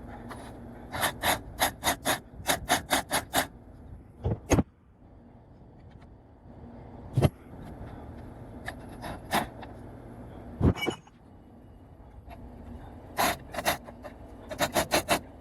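Ratchet wrench clicking in quick, evenly spaced strokes as suspension bolts are tightened: one run in the first few seconds and another near the end, with a few single metallic knocks between.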